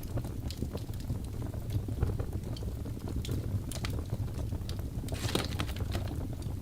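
Fire crackling in a fireplace: a steady low rumble of flames with scattered sharp pops and snaps, and a brief flurry of crackles about five seconds in.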